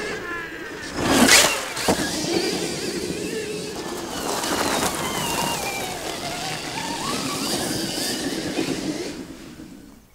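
Stark Varg electric motocross bike ridden hard on a dirt track: its electric motor whine rises and falls with the throttle over the noise of knobby tyres spinning and scrabbling in loose dirt. There is a loud rush of tyre and dirt noise about a second in, and the sound fades out near the end.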